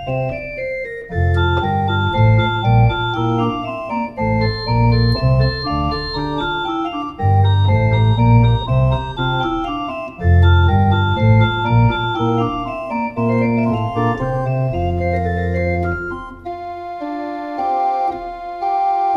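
Two-manual electronic console organ playing a slow piece in sustained chords over deep bass notes. About sixteen seconds in the bass drops away and a lighter, higher passage follows.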